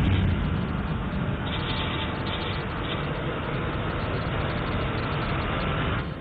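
Sound effect for an animated title logo: a sudden hit, then a loud, deep, noisy rush that holds steady and drops away about six seconds in.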